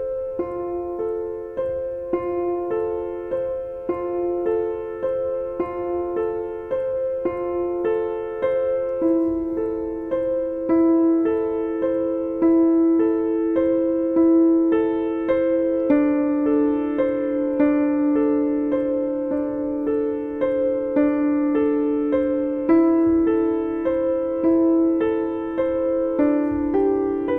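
Background piano music: single notes struck at an even pace in a repeating figure.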